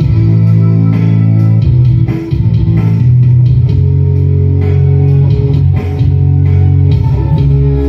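A dangdut koplo song with guitar and heavy bass, played loud through a 12-inch full-range speaker fed by a parametric equalizer.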